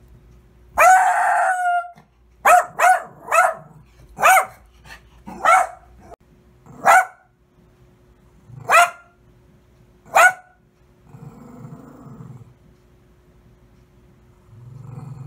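Small dog barking: one long drawn-out bark about a second in, then a string of about eight short, sharp barks, followed by a low growl.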